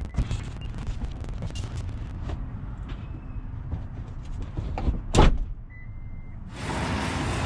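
Knocks and clatter of long plastic pipes being handled in and around a car, with one loud thump about five seconds in, then a steady rush of car noise near the end.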